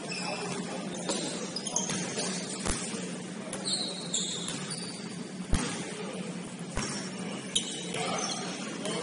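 Basketball game play: sneakers squeaking on the court in short high chirps, and a basketball bouncing a few times, over a steady low hum.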